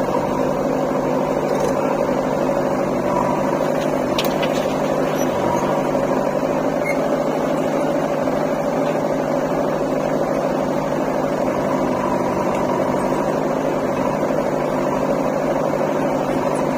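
JCB 3DX backhoe loader's diesel engine running steadily at an even pitch.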